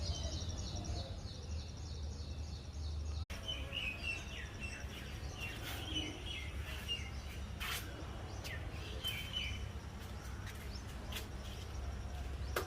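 Birds chirping and calling in the morning over a steady low rumble. A fast, even trill fills the first three seconds, then the sound cuts out for an instant; after that come scattered short chirps and calls.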